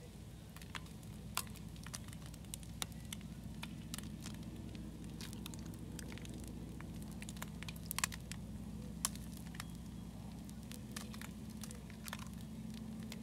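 Eggs and meat frying in a pan and on a griddle, the hot fat crackling with frequent sharp pops over a steady low hum. Egg shells are cracked on the pan's rim.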